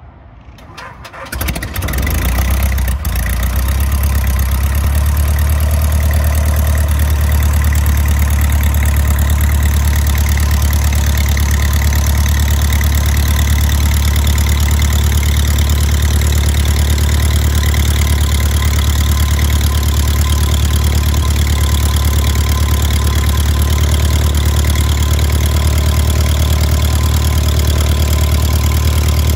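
Cessna 150L's Continental O-200 four-cylinder engine starting, catching within about two seconds, then settling into a steady idle.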